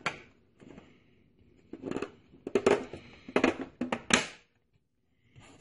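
Plastic keyed insert being pushed into the pressed-metal rear of a Gateway 2000 computer case: a run of sharp clicks and rattles over about two and a half seconds, as its tab clicks into place.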